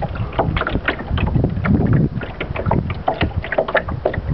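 Wind buffeting the microphone, with irregular splashes and slaps of water against a small boat's hull.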